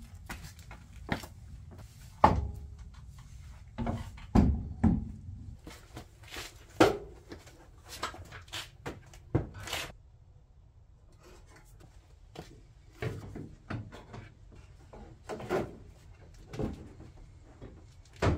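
Irregular knocks, clunks and clicks of car body parts being handled and pushed into place, such as a plastic rear bumper cover and taillight on a Nissan 240SX. The loudest thumps come about two and four and a half seconds in, with a quieter pause around two thirds of the way through.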